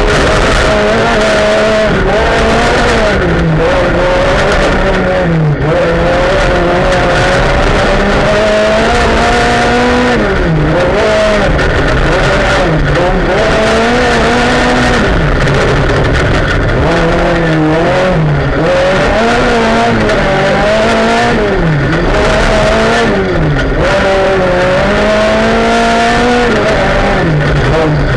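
Rally car engine heard from inside the cockpit, its revs climbing and dropping again every few seconds as it accelerates and lifts for corners on a gravel stage, over a steady rush of tyre and gravel noise.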